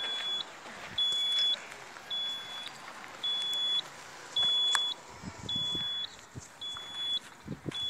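Handheld 3D Locator groundwater detector beeping while being swept across the ground in a water survey: a high, even beep about half a second long, repeating about once a second. A single sharp click comes about halfway through.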